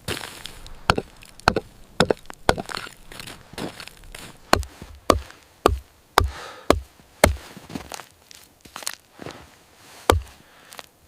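A series of sharp chopping or knocking impacts, about fourteen at an uneven pace of one or two a second, several in the middle with a deeper thud.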